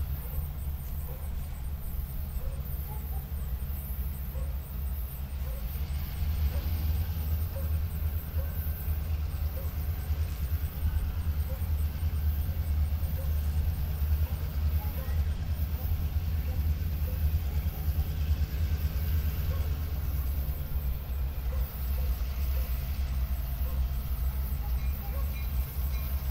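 Diesel engines of EMD F-unit locomotives, an FP9A leading, running with a steady low rumble as the train approaches slowly; the rumble grows slightly louder as it draws nearer.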